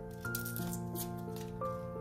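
Background music of steady held notes that change every half second or so, with light clicks over it.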